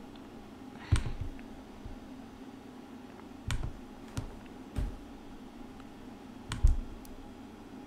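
Sharp clicks of computer input at a desk, about six of them spread a second or more apart, two close together about two-thirds of the way in, over a faint steady room hum.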